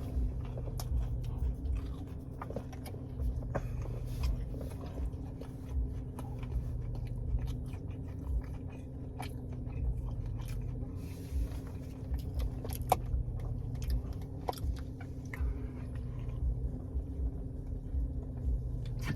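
A person chewing and biting into breaded mozzarella cheese bites close to the microphone, with many small mouth clicks scattered throughout. A steady low hum runs underneath.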